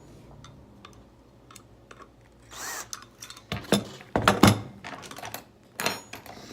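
Metal hard-drive parts and a hand tool clicking and clanking as the drive is taken apart: scattered light clicks, a short scrape with a brief squeak a little before halfway, then a few sharp knocks, the loudest just past halfway and another near the end.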